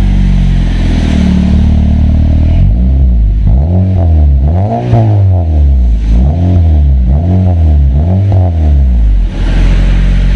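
Honda Civic FD's four-cylinder engine idling through an axle-back exhaust with the resonator deleted and a chambered muffler. About three seconds in it is blipped through several quick revs that rise and fall, then it settles back to idle near the end.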